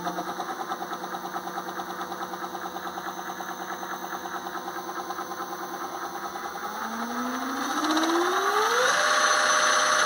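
Bafang G06 geared hub motor, opened up and running under power, its whine pulsing rhythmically at about eight beats a second: the 'whoop whoop' noise that the owner puts down to a bent main spindle, with metal-to-metal contact between rotor and stator. About seven seconds in it speeds up, the whine rising in pitch and the pulsing smoothing out, then it runs steady at the higher speed.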